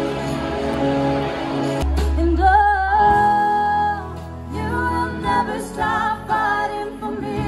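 Live band with a woman singing lead: long held notes that slide into pitch, over keyboard, drums and electric guitar, with deep bass notes coming in about two seconds in.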